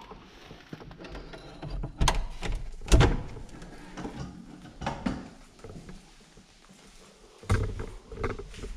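A door being opened by its lever handle: sharp latch clicks and knocks about two and three seconds in, the second the loudest with a low thud. A smaller knock comes near the middle and another thump near the end.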